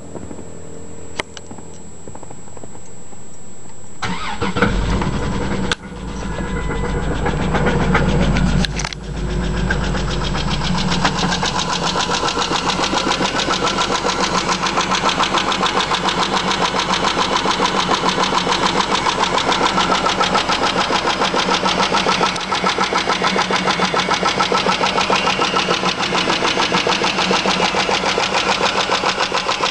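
Chrysler 300M's 3.5-litre V6 cold-started: it catches about four seconds in, runs fast for several seconds, then settles to an idle with a quick, steady ticking. The owner suspects a lifter tick or a spun bearing.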